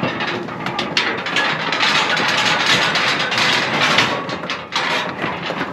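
A metal livestock stock trailer rattling and banging as cows are turned out the back: the gate clanks and hooves clatter on the trailer floor in a dense run of knocks.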